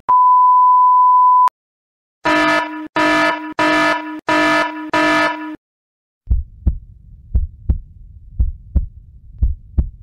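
Steady test-card tone for about a second and a half, then five evenly spaced buzzy electronic beeps, then a heartbeat sound effect: low thuds in pairs, about one beat a second.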